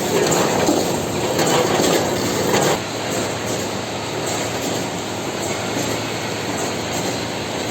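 Automatic vertical packaging machine running, a continuous mechanical clatter of small clicks and knocks. It is louder at first and settles to a quieter, steadier run a little under three seconds in.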